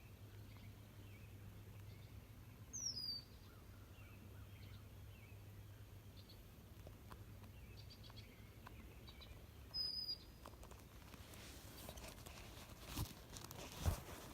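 Songbird calls: two short, clear whistled notes that slide down in pitch, about seven seconds apart, with a few faint chirps between. A couple of soft knocks of handling come near the end.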